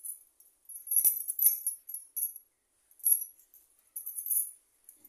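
Bangles on a wrist jingling in several short, high, tinkly bursts as the hand works over the fabric.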